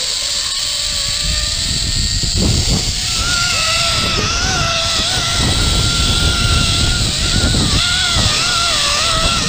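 Zip-line trolley running along its steel cable with a steady rush of wind over the microphone; a thin, wavering high whine joins from about three seconds in.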